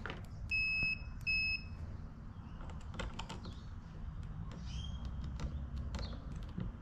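Digital multimeter's continuity beeper giving two short, high beeps in quick succession as its probes bridge the switch terminals, signalling a closed circuit between them. Faint clicks of the probe tips on the terminals follow.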